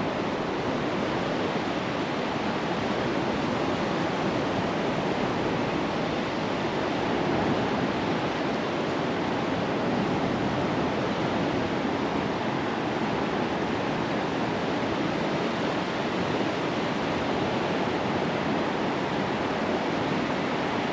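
Steady surf washing onto the beach, an even hiss of breaking waves with little rise and fall.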